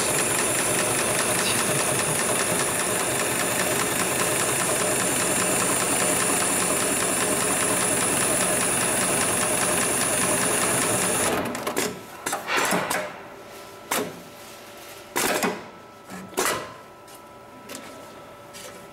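HIGHTEX 7273 CNC automatic industrial pattern sewing machine running fast and steadily, stitching a cross pattern into sling webbing, then stopping abruptly about eleven seconds in at the end of its sewing cycle. A few short clacks and hisses follow.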